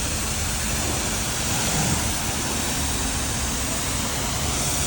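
Steady running rumble of a heavy machine's diesel engine, with a constant noisy hiss over it.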